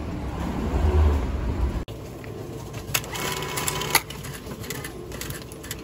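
Railway ticket vending machine issuing a ticket: a sharp click, a whirring run of about a second with a steady tone in it, a second sharp click, then lighter clicks. Before it, a low rumble that cuts off suddenly about two seconds in.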